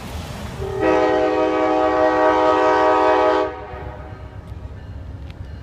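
Multi-chime air horn of an approaching Amtrak passenger locomotive sounding one long blast for the grade crossing. Several tones are held together, beginning about a second in and cutting off sharply about two and a half seconds later, over a low rumble from a car passing close by at the start.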